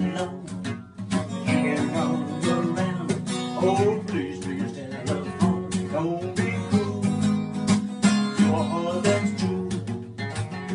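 Acoustic guitar strummed in a steady rhythm, with a gliding, voice-like melody over it.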